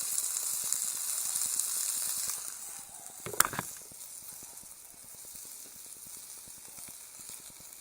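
Newspaper burning in place of firewood, with a fine crackling hiss that drops off about two and a half seconds in. There is one sharp knock about a second later, then a fainter crackle.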